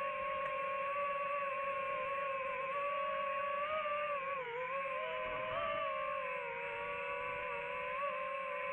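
DJI FPV drone's propellers and motors humming steadily, heard from the drone itself; the pitch wavers and dips briefly about halfway through as the throttle changes.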